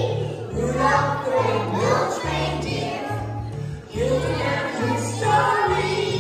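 A group of young children singing along with recorded backing music that has a steady, stepping bass line.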